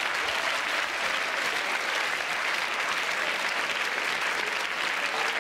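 Large theatre audience applauding, many hands clapping steadily.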